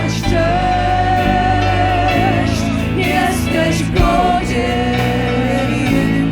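Live worship band playing a slow song, with a singer holding long wavering notes over steady low chords.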